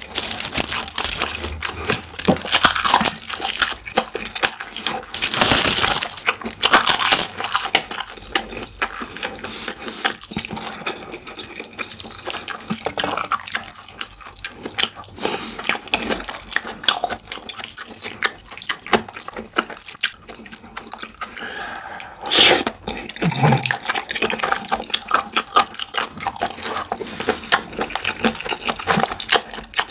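Close-miked chewing and wet mouth smacking of a person eating spicy stir-fried squid, with many small clicks and smacks throughout. One louder, longer noise comes about 22 seconds in.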